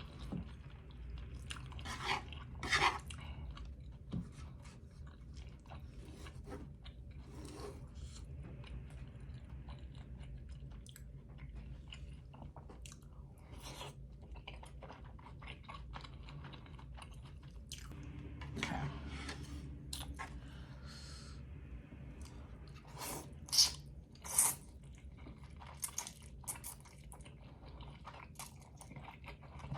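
Close-miked mouth sounds of a person eating noodles and steamed pork dumplings: wet chewing with many short clicks and smacks, a few louder slurps or smacks near the end. A low steady hum runs underneath.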